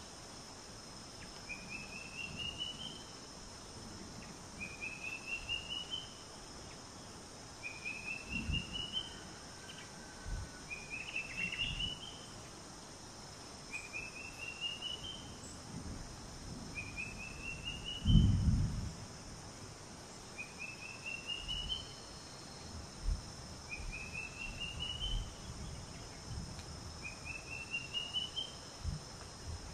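A bird repeats a short, rising run of quick notes about every three seconds, nine times, over a steady high insect drone. A few low thumps break in, the loudest about 18 seconds in.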